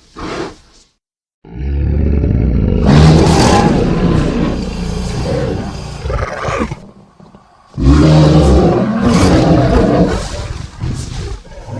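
Creature sound effect of a Spinosaurus roaring: two long, deep roars of about five and four seconds, with a short pause between them.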